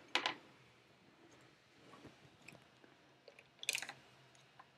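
Paper napkin crinkling in two short bursts, one right at the start and one about three and a half seconds in, with a few faint ticks between.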